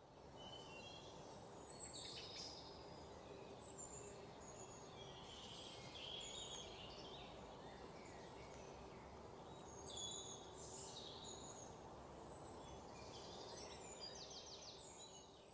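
Quiet outdoor ambience: small birds chirping and twittering in short high calls over a steady low background hiss, with a rapid trill near the end.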